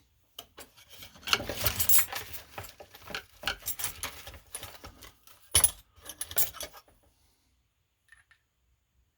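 Small metal parts clicking and rattling in quick succession, with one sharper click a little over five seconds in, then stopping: a pin-tumbler lock cylinder and plug follower being handled while the plug is worked out.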